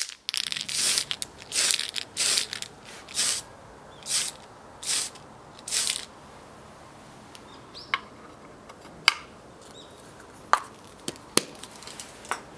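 Mr. Color aerosol spray-paint can giving seven short hissing bursts, about one every 0.8 s, as a plastic model part is coated. These are followed by a few sharp clicks and taps.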